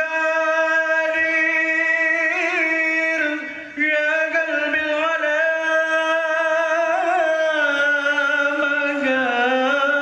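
A man's solo voice singing a melismatic Middle Eastern-style melody, holding long notes decorated with quick wavering ornaments, with a brief breath about three and a half seconds in.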